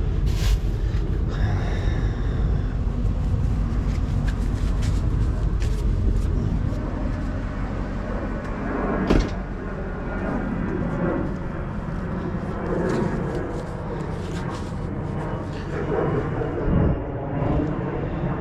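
Scattered clunks and knocks of scrap items being handled and set down, with one loud bang about nine seconds in, over a steady low vehicle rumble.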